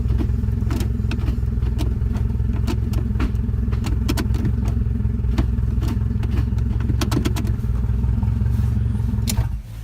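Turbocharged Honda K-series engine idling steadily, with scattered sharp clicks over the top. It cuts off abruptly near the end.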